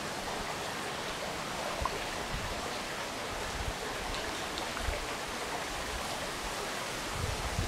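Steady rushing of flowing creek water, with a few faint low thumps.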